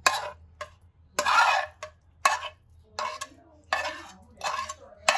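A metal spoon scraping and clinking against a frying pan in short, irregular strokes as pieces of sauced tofu are scooped out onto plates.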